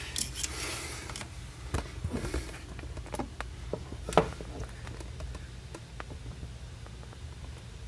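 Light handling noise as LED light cables are worked into place: scattered small clicks and taps, one sharper knock about four seconds in, over a steady low hum.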